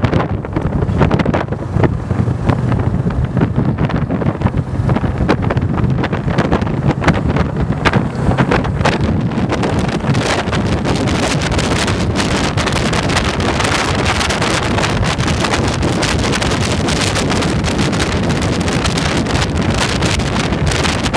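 Wind buffeting a motorcycle-mounted microphone over the motorcycle's engine running, the wind noise growing denser and steadier about halfway through as the bike picks up speed on the open road.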